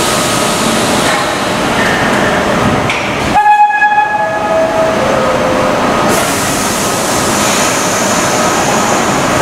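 Vintage subway cars pulling slowly into an underground station, with a steady rumble of wheels and running gear. About three and a half seconds in comes a loud, shrill tone that steps down in pitch over the next two seconds.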